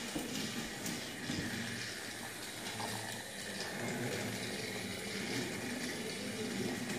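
Battery-powered Thomas toy train running along plastic track, a steady whirring with no distinct knocks.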